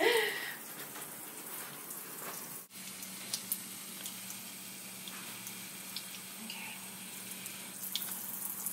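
A faucet running steadily into a sink basin, the water splashing over a gloved hand held in the stream.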